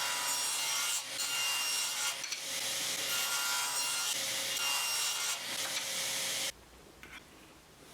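A saw cutting through small wooden pieces: a steady sawing sound with brief dips, stopping abruptly about six and a half seconds in.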